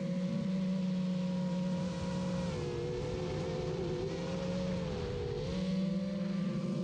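Motors and propellers of a Darwin 7-inch FPV quadcopter buzzing steadily, heard from its onboard camera. The pitch sags a few seconds in and comes back up about two seconds later.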